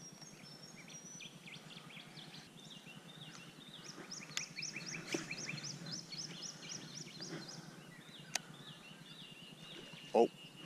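Wild birds singing and calling in bushland: quick series of short repeated chirps and whistles, one run lasting from about four to seven and a half seconds. A single sharp click comes a little after eight seconds, and a brief louder pitched sound near the end.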